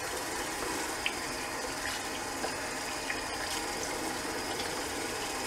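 Bathroom sink tap running steadily with cold water, with small splashes now and then as the face is rinsed.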